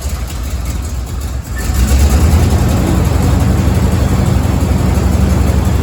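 A 1987 Chevy 3500's 454 big-block V8 running just after starting, with a steady low rumble that grows louder about a second and a half in and then holds.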